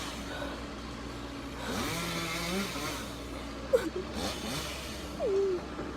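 Chainsaw running steadily, with a few short rises and falls in pitch.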